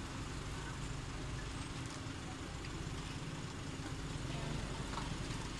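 Steady background noise: a low hum under an even hiss, with no distinct events.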